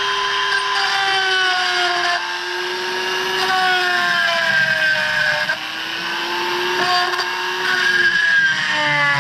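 Dremel rotary tool running with a steady whine, grinding out the remains of a nut. Its pitch sags several times as the bit bears down on the metal, then recovers.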